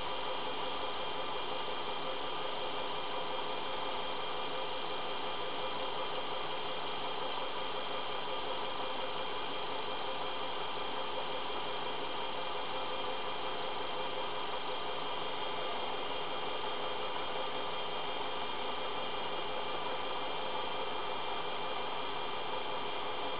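Einhell BT-ML 300 mini lathe running at a constant speed while turning a brass rod: a steady motor-and-spindle hum with a whine of several steady tones, unchanging throughout.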